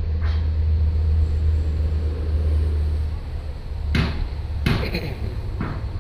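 Heavy machinery engine running with a low steady rumble, with three sharp knocks in the second half.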